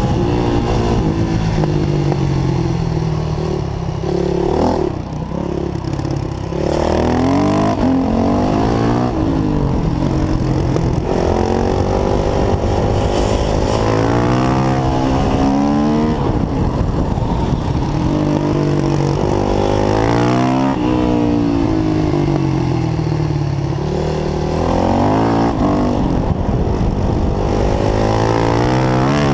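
Yamaha YZ450F single-cylinder four-stroke engine heard from on board, revving up again and again as it accelerates and shifts through the gears, then dropping back off the throttle for corners, with a longer ease-off about five seconds in.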